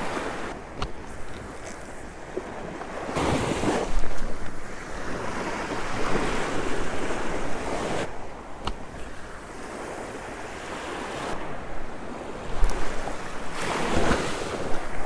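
Small surf waves washing up onto a sandy beach, swelling and fading every few seconds, with wind gusting across the microphone.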